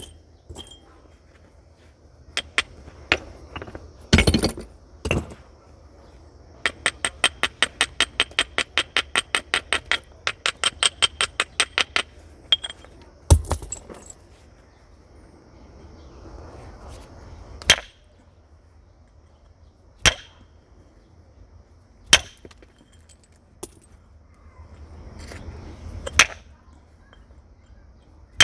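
Flint being knapped with natural tools: sharp, ringing percussion strikes on the stone at irregular intervals, and in the first half a rapid, even run of light taps at about five a second for several seconds.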